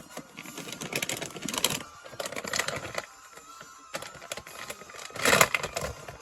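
Rapid clicking like typing, in four bursts of about a second each with short pauses between them.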